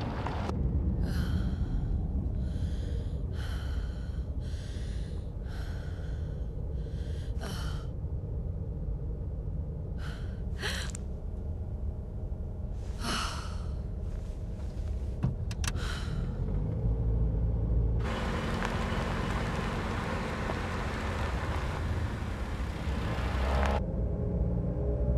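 A woman breathing fast and gasping, about one breath a second, over the low rumble of a car cabin, with a few more gasps and then some sharp clicks. Near the end the car drives off and louder engine and road noise sweeps in for several seconds.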